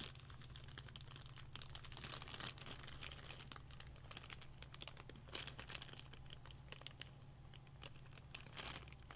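Faint crinkling of a plastic accessory bag and small clicks of loose screws as someone rummages through the PC case's screw pack, over a steady low hum.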